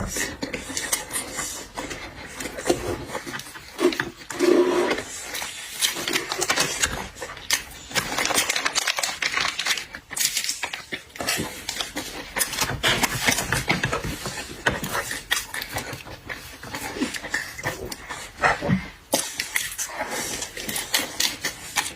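Close-miked eating of seafood: chewing with dense, irregular crackling clicks and crunches.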